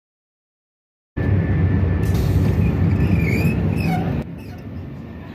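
After about a second of silence, the running noise of a double-decker high-speed train heard from the passageway between cars: a loud rumble with a thin steady whine and a few brief squeals. About four seconds in it drops to a quieter rumble inside the bar car.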